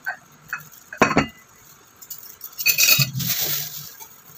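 Spoons and dishes clinking: a few light clinks, the loudest about a second in, then a longer rustling noise near the end.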